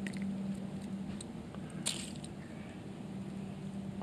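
Small clicks and light handling noise of a hard jerkbait lure being worked out of a crappie's mouth by hand, with one sharper click about two seconds in. A steady low hum runs underneath.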